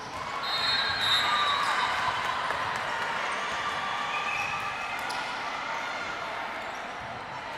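Steady indoor din with faint background voices and occasional knocks, a little louder about a second in.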